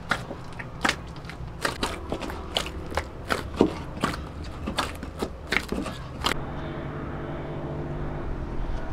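Hand kneading soft bread dough in a plastic bowl: irregular slaps and knocks as the fist presses and folds the dough against the bowl. The knocking stops about six seconds in, leaving a steady low hum.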